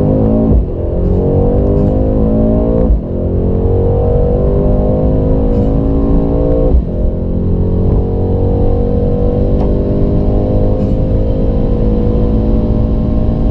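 A high-performance car's engine at full-throttle acceleration, rising in pitch through the gears with quick upshifts about half a second in, near three seconds and near seven seconds, then climbing slowly in a high gear.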